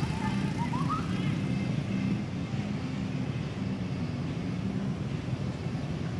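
Steady low drone of an engine running, with a short rising squeak about a second in.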